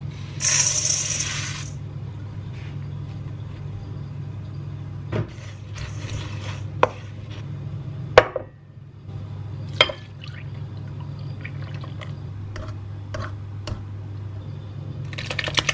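Kitchen prep sounds around mixing bowls. A brief pour into a stainless steel bowl comes first. Then come a few sharp clinks and knocks of utensils against the bowls, and near the end a fork whisks rapidly against a glass bowl. A steady low hum runs underneath.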